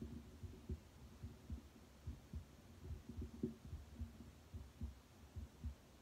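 Human heart sounds picked up through a stethoscope chest piece pressed on the bare chest: a steady rhythm of soft, low lub-dub thumps.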